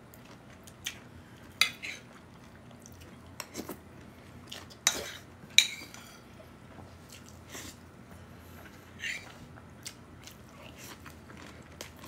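Metal spoon clinking and scraping against a ceramic bowl as food is scooped up, in scattered sharp clinks with the loudest pair about five seconds in, and quiet chewing between.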